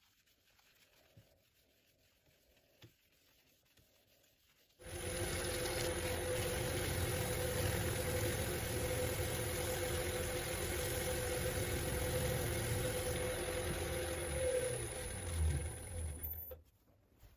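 Wood lathe running with a segmented wooden bowl spinning on it and a finishing cloth held against the bowl: a steady motor hum with a low rumble and a faint high whine. It starts suddenly about five seconds in and cuts off shortly before the end; before it there is only faint rubbing of the cloth on the still bowl.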